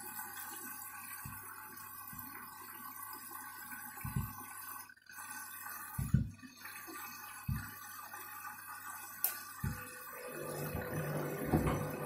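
Candy front-loading washing machine on a delicates wash, its motor humming steadily as the drum turns, with occasional dull thuds of shoes tumbling in the drum. About ten seconds in the motor note changes and grows louder.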